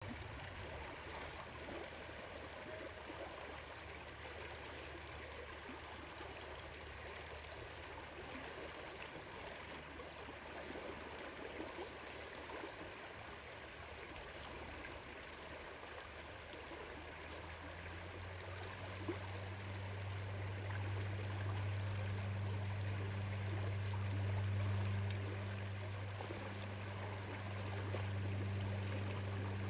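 Shallow river water flowing steadily over the riverbed, an even rushing sound. About two-thirds of the way through, a low steady drone comes in beneath it and becomes the loudest sound.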